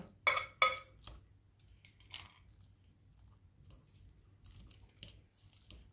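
Fork mashing cooked potato and broccoli in a glass bowl: two sharp clicks of the tines against the glass in the first second, then faint scattered clicking and soft squishing scrapes.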